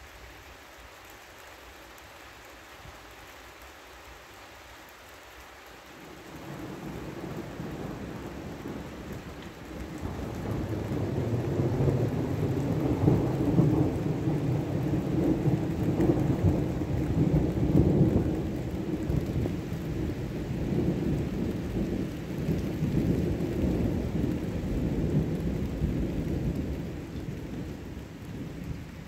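Long rolling thunderclap. The low rumble swells from about six seconds in, is loudest in the middle, and fades away slowly near the end.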